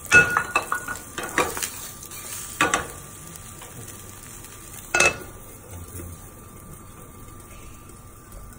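Hamburger patty sizzling in a frying pan on a gas burner, with clanks of metal pans: a run of knocks in the first three seconds and one sharp clank about five seconds in, as an upturned second pan is set over the patty as a lid.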